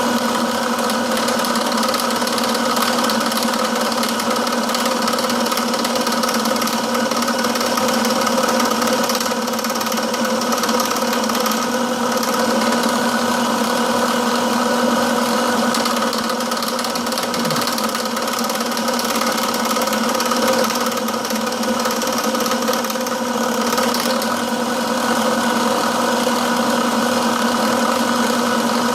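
Milling machine running steadily with its cutter taking a cut in the workpiece: a constant machine hum with several steady tones over a rough, grinding noise.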